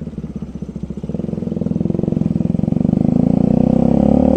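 Bajaj Rouser RS200's single-cylinder motorcycle engine pulling away and accelerating, its pulsing exhaust note growing steadily louder and rising slightly in pitch.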